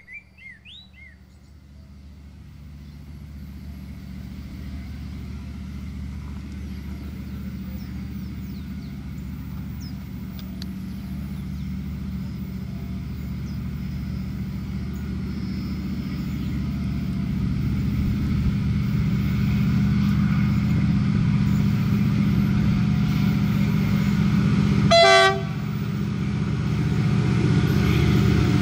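A freight train approaching, its low engine rumble building steadily louder, with one short horn blast near the end. A few bird chirps at the very start.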